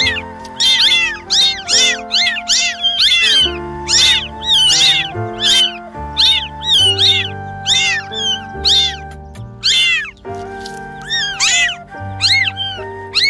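Domestic cats meowing over and over, short high meows that rise and fall in pitch, about two a second and sometimes overlapping, with a brief lull about ten seconds in. Background music with sustained notes and a bass line plays under them.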